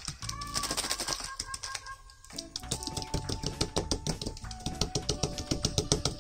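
Fast, even clicking like typewriter keys, over light background music with a simple melody; the clicks thin out briefly about two seconds in.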